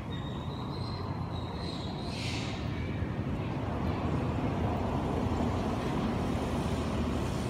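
Motorbike passing on the road, its low engine rumble growing louder through the second half. A thin high whistle sounds at the start and a brief high squeak about two seconds in.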